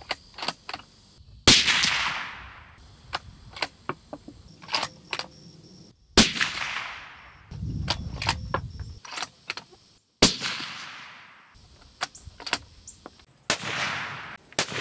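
Suppressed 7mm-08 bolt-action hunting rifle (Ruger American Gen 2) firing four times, about four seconds apart. Each shot is a sharp crack that fades out over a second or more as a long echo, with small clicks between the shots.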